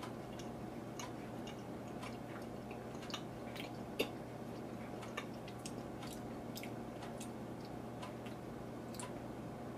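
A person chewing a jelly bean with the mouth closed: faint, scattered small clicks, one a little sharper about four seconds in, over a steady low hum.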